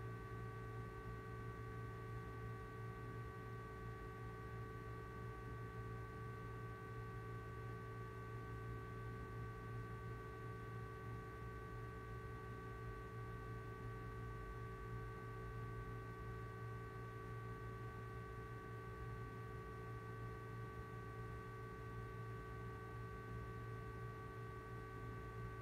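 Steady low hum with a few faint, steady high tones over it: background room tone, with nothing else happening.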